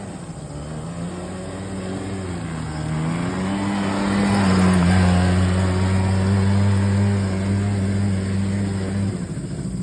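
ATV buggy engine at full throttle on an uphill run. The engine note climbs about three seconds in, holds at its loudest through the middle, and drops near the end.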